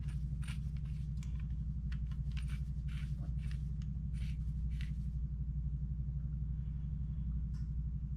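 A steady low hum of workshop machinery, with a quick series of light metal clicks and clinks from hand tools during the first five seconds, then only an odd click.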